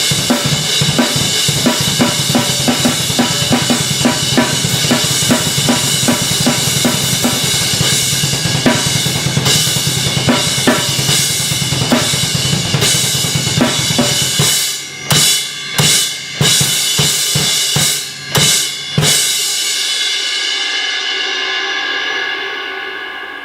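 Zildjian 18" K Dark Thin Crash played over a drum-kit groove of bass drum, snare and hi-hat, its wash ringing steadily under the beat. A little past halfway the groove breaks into a handful of separate accented hits with short gaps between them, then a final crash is left to ring out and slowly fade.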